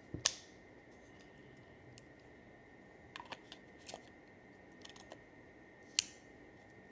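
Sharp clicks and snaps of hard plastic being handled while a gimbal is unboxed: a loud snap just after the start, a run of lighter clicks between about three and five seconds in, and another loud snap near the end.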